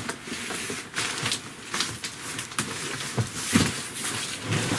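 Large corrugated cardboard box being handled and turned over: irregular rubbing and scraping of cardboard, with a few dull knocks in the second half.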